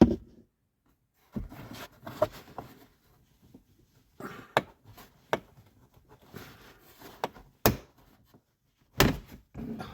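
Plastic A-pillar trim being forced off its stuck retaining clip: creaking and scraping with a string of sharp plastic clicks and snaps, the loudest two about three quarters of the way through and near the end.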